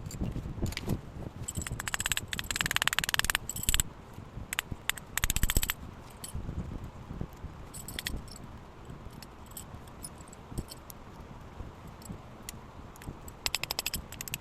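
Small metal parts and tools clinking and rattling as they are handled, in several bursts of rapid jingling clicks with single taps between.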